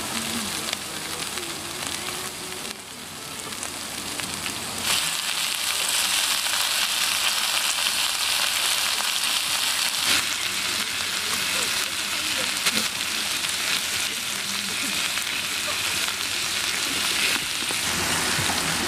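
Beef ribs and steak pieces sizzling on a hot round griddle pan. The frying hiss grows louder about five seconds in and then holds steady.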